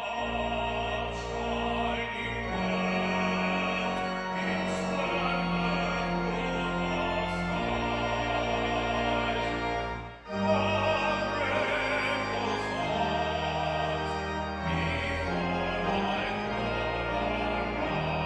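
Pipe organ playing sustained chords over low held pedal notes. The chords change every second or two, with a short break about ten seconds in.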